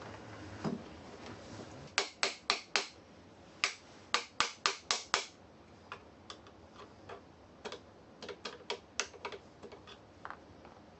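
Runs of sharp clicks from a tool working on the electric unicycle as it is reassembled after the tire change: four quick clicks about two seconds in, a faster run of about seven a little later, then a fainter, scattered series.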